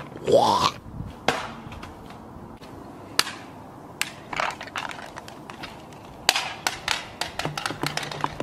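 Scattered sharp clicks and knocks of handling noise, with a short falling squeal near the start and a faint low hum near the end.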